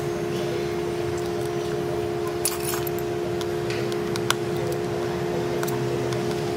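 Light metallic clicks and taps of small repair tools on the metal connector shield and screws inside an opened iPhone 11 Pro Max: a short cluster a little over two seconds in and one sharp click about four seconds in. A steady electrical hum runs underneath.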